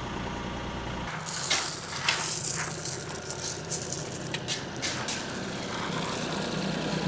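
A machine engine running steadily, with irregular clattering and scraping clicks from about a second in.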